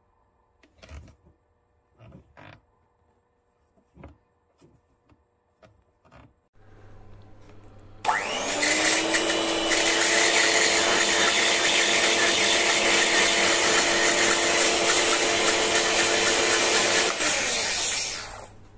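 Electric hand mixer: a few handling clicks first, then about eight seconds in the motor starts and its whine rises briefly to a steady loud whirr of the beaters in the bowl. It runs evenly for about nine seconds and winds down near the end.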